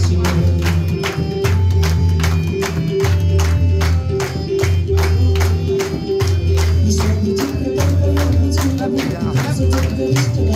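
Aarati devotional music: singing over fast, evenly spaced metallic percussion strokes, about four to five a second, with a steady held tone and a low drum beat.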